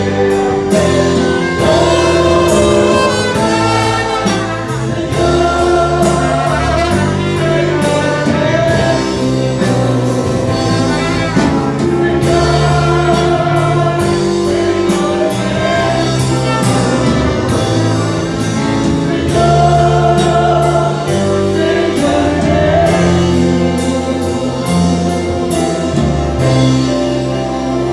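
Live gospel worship music: several voices singing into microphones over an amplified band, with a trumpet playing along.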